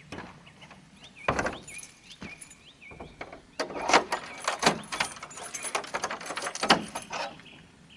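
A heavy wooden plank barn door shuts with one loud thud about a second in. A few seconds later comes a run of metallic clicking and rattling as the door is fastened.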